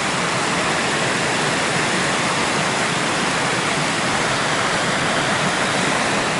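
Steady rush of water pouring over a reservoir weir overflow, an even, unbroken roar of falling and flowing water.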